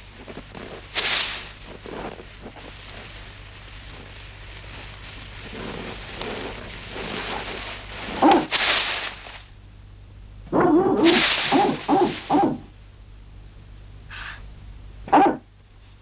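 Cartoon St. Bernard dog giving several short bouts of barks and whimpers, including a quick run of calls about two-thirds of the way through, with a soft rushing noise in between.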